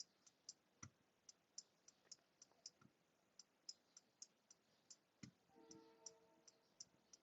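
Near silence with faint, evenly spaced small clicks, about three or four a second.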